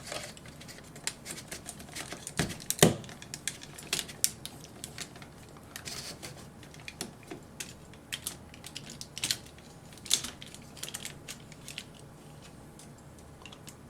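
Small irregular clicks and taps of a Bandai DX Chogokin VF-1J Valkyrie toy figure being handled and posed, its parts knocking and snapping, with one louder click about three seconds in.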